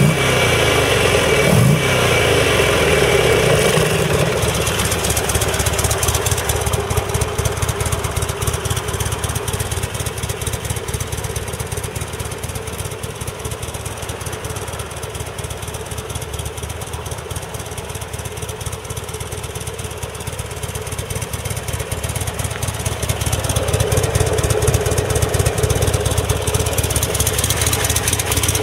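Buell XB12STT Lightning Super TT's 1203 cc air-cooled V-twin idling, with two quick throttle blips in the first couple of seconds. It is fainter through the middle and louder again in the last few seconds.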